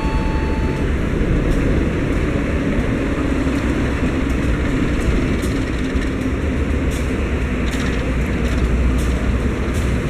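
Diesel-electric locomotive hauling a passenger train slowly into a station, a steady low rumble of engine and wheels on the rails, with a few clicks near the end. A held multi-note tone stops about a second in.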